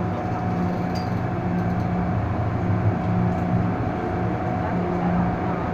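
Interior hum of an MTR M-Train electric passenger car: a steady noise with a constant low tone and a fainter, higher tone held at one pitch.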